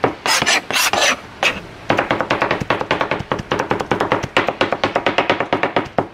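Two meat cleavers chopping smoked pork butt on a plastic cutting board in a fast, even rhythm of knocks. Near the start there is a brief scraping sweep of a blade across the board.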